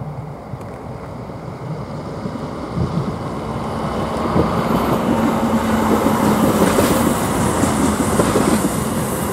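Regional diesel railcar approaching and rolling over the level crossing, growing steadily louder. Its engine gives a steady hum, and its wheels knock over the rail joints in the second half.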